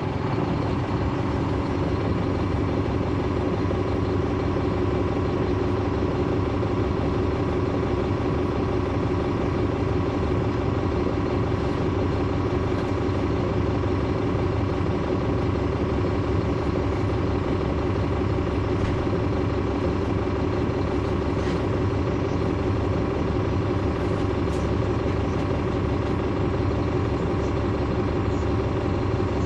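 Caterpillar C13 ACERT diesel engine of a 2009 NABI 416.15 transit bus, heard from on board, running at one steady pitch that does not rise or fall.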